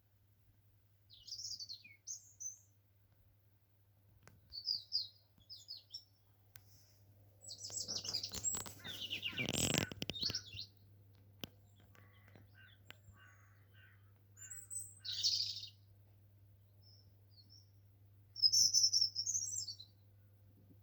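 Bird chirping in short bursts of high calls a few seconds apart, with a longer, louder stretch of chattering about eight to ten seconds in.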